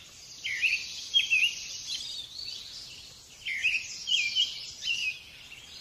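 Small birds chirping in two short bouts of twittering calls, over a steady faint hiss of chopped onions frying in olive oil.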